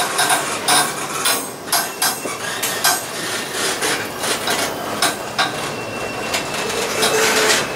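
Empty TTX intermodal flatcars of a freight train rolling past close by: a steady rumble of wheels on rail with frequent, irregular sharp metallic clanks and bangs.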